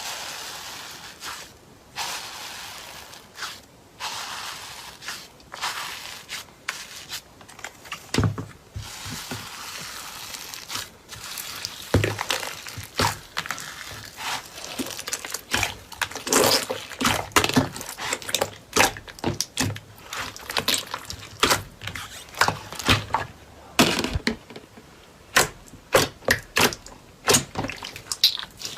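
Slime being stretched and squeezed by hand: soft hissing stretches over the first several seconds, then a long run of sharp clicks and pops from about twelve seconds in.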